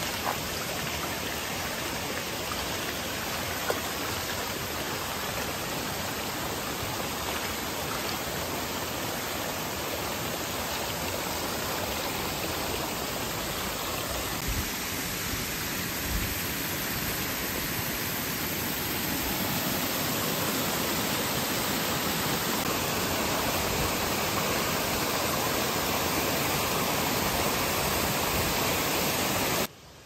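Shallow mountain stream rushing over rocks, with water pouring from a wooden trough and splashing onto stones. It runs as a steady hiss, a little louder over the second half, with a few brief low bumps, and stops abruptly near the end.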